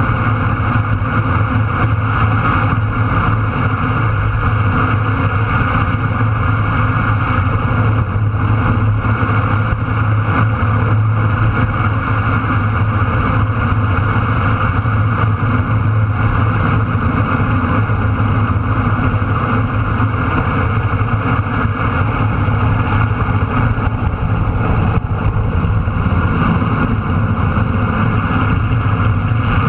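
Motorcycle engine pulling steadily at road speed, with wind rushing over the camera's microphone as a loud, even drone.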